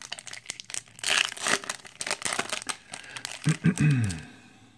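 Wrapper of a 2015 Topps Update baseball card pack being torn open and crinkled by hand, a dense run of crackles. Near the end comes a brief low sound that falls in pitch.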